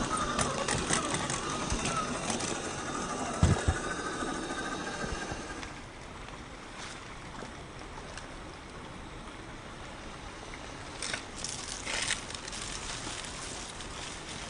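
Electric motor and gears of a 1/10-scale RC rock crawler whining, rising and falling in pitch as it is driven, with a sharp knock about three and a half seconds in. After about six seconds the whine drops away and a few crunches and clicks are heard, like tyres on rock and gravel.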